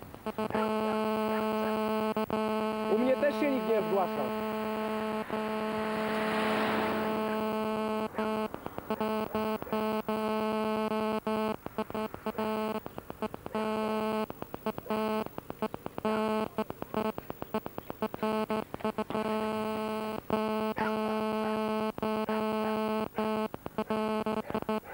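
A steady electrical buzz with many overtones on the recording, cutting out briefly again and again, most often in the second half; a short voice-like sound rises and falls about three seconds in.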